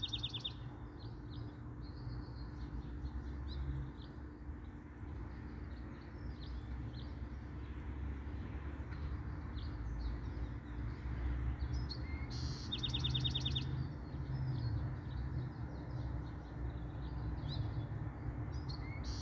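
Songbirds calling with scattered short chirps, and one fast trill of quick repeated notes about 13 seconds in, over a steady low rumble.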